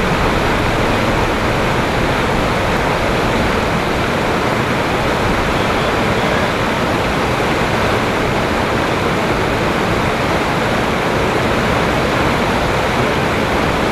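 Steady rushing of a shallow river flowing over rocks.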